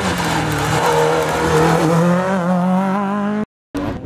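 Rally car engine running hard at high revs as the car comes through a bend, the pitch dipping just after the start and then holding with a slight waver. The sound cuts off abruptly about three and a half seconds in.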